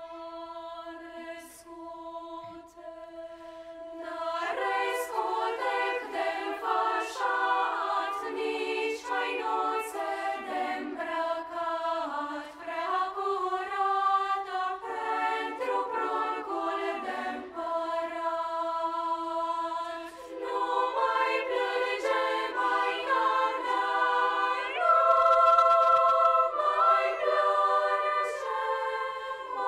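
Children's choir singing. A single note is held steady throughout, and the full choir comes in over it about four seconds in, growing louder near the end.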